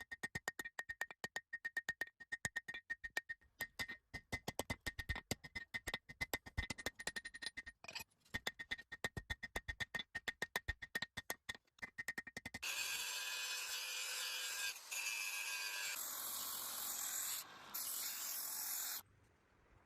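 Rapid, rhythmic hammer blows on steel, several a second, for about twelve seconds, followed by a steady grinding noise that cuts off suddenly near the end.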